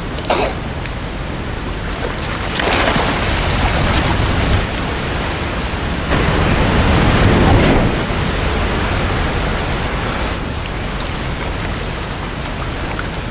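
Waterfall: a steady rush of falling water that swells louder for a couple of seconds about three seconds in, and again from about six to eight seconds in.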